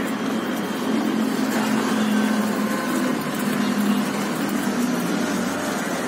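Steady low engine hum of road traffic, a little louder through the middle.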